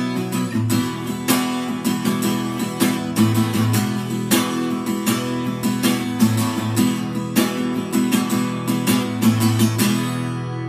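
Steel-string acoustic guitar strummed with new coated D'Addario EXP19 strings in standard E tuning, a steady run of strokes with the final chord ringing out and fading near the end.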